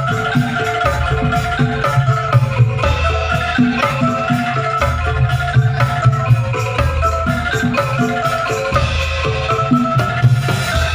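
Angklung music played through a sound system: bamboo notes in a bright, marimba-like melody over a heavy, pulsing bass beat.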